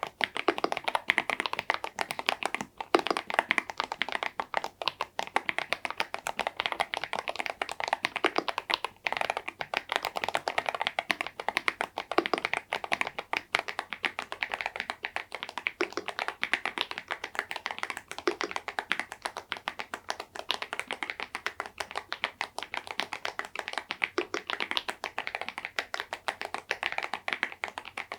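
Continuous fast typing on an EPOMAKER Dynatab 75X mechanical keyboard with tuned KTT Macaron Blue tactile switches and KEYTOK KDA keycaps: a steady stream of keystroke clacks with no pause longer than a moment.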